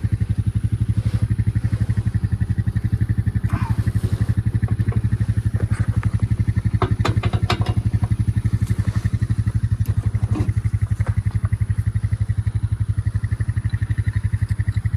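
Vehicle engine idling with a steady, fast low throb. A few sharp clicks and clatters stand out about seven seconds in, with fainter ones around four and ten seconds.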